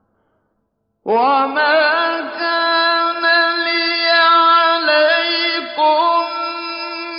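A male reciter chanting the Quran in a slow, melodic style. After a second of silence his voice comes in with a rising glide and holds long drawn-out notes with small ornaments.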